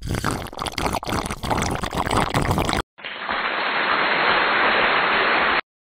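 Edited-in noise effects over title cards: about three seconds of dense crackling, then after a short break a steady hiss like static, which cuts off suddenly.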